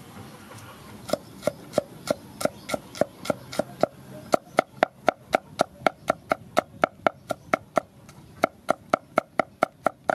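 Cleaver chopping peeled garlic cloves on a thick round wooden chopping block: a steady run of sharp knocks, about three to four a second, starting about a second in, with a brief pause near the end.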